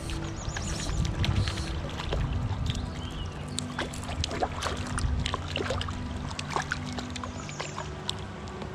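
Water splashing and sloshing, with many short irregular splashes and a few low thumps, as a small brook trout is played and stripped in on a fly line. Soft background music with steady low held notes runs underneath.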